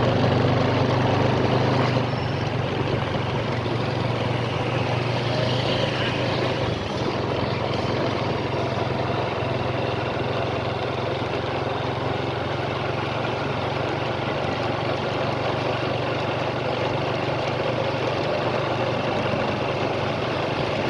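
Steady low rumble of engines running, mixed with general outdoor noise, with no distinct bangs.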